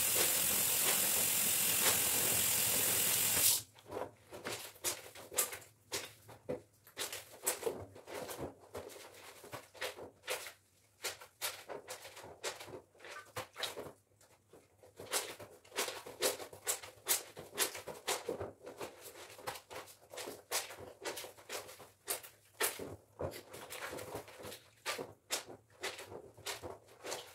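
Soapy clothes being scrubbed by hand in a basin: many short, irregular rubbing strokes of wet fabric. It opens with a steady hiss that cuts off suddenly about three and a half seconds in.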